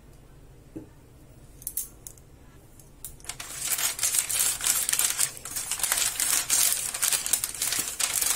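Butter paper crinkling and rustling as a silicone pastry brush spreads oil over it, a continuous crackly scratching that starts about three seconds in. A couple of faint clicks come before it.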